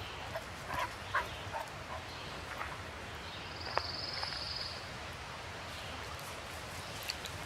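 A few short dog barks and yips, mostly in the first couple of seconds, over a steady background hiss. A brief high trill comes a little past the middle.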